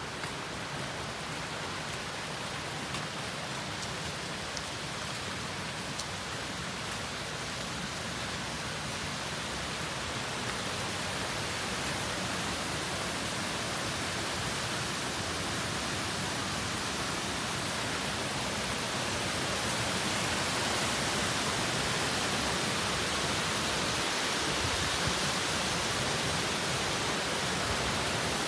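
Steady rushing hiss of water falling over the cascades of Shiraito no Otaki falls, growing gradually louder.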